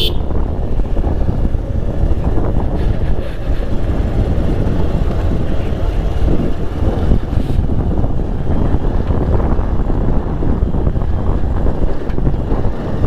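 Single-cylinder engine of a Bajaj Pulsar 220F motorcycle running steadily under way, with wind buffeting the microphone.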